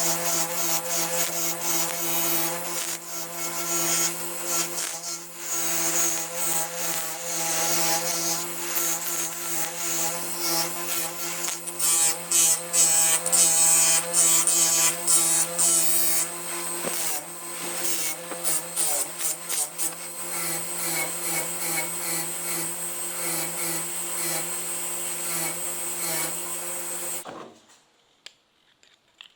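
Small electric power tool running at a steady speed, its spinning attachment grinding and scraping against the workpiece in uneven strokes; the motor cuts off suddenly near the end.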